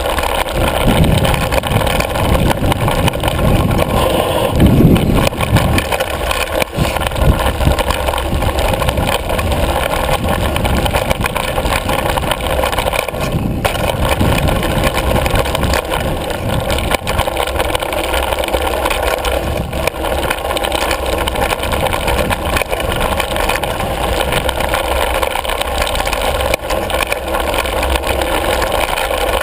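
Wind rumbling over a handlebar-mounted GoPro Hero 2 and the rattle and jolting of a Yeti ASR5 mountain bike descending a rough dirt trail. A steady low noise with small knocks over the bumps, surging louder a few times in the first seven seconds.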